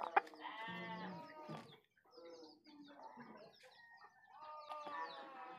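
A rooster sick with ngorok, a respiratory illness with mucus in its throat, making two drawn-out wavering calls: one starting about half a second in and lasting over a second, another near the end.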